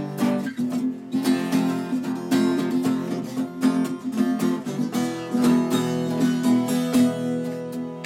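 Two acoustic guitars played together, with a quick, steady strummed rhythm.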